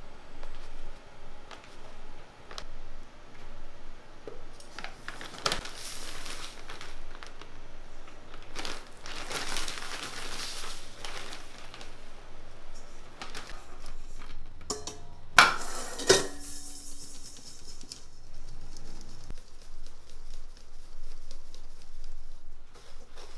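Paper and plastic flour bags crinkling as flour is poured and handled over a stainless steel mixing bowl, with two sharp knocks about two-thirds of the way through. Near the end, a mesh sieve is shaken to sift flour into the bowl.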